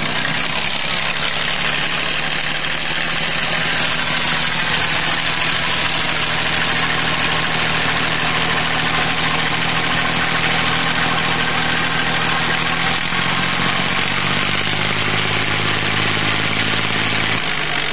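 Diesel tractor engine running steadily, fuelled by an 80% jatropha biodiesel and 20% diesel blend. Its speed shifts about two-thirds of the way through, then holds.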